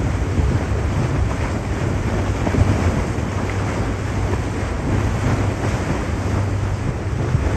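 Wind buffeting the microphone as a steady, fluctuating low rumble, with choppy river water lapping beneath it.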